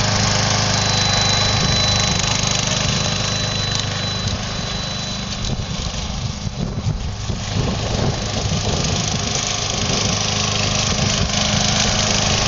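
Gasoline engine of a hybrid remote-controlled lawn mower running steadily as it mows. It grows fainter about halfway through as the mower drives away, then louder again as it comes back.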